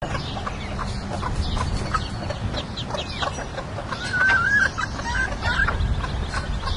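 Muscovy ducklings peeping in short high chirps, with a bantam hen clucking as she broods them. There is one longer, wavering call about four seconds in.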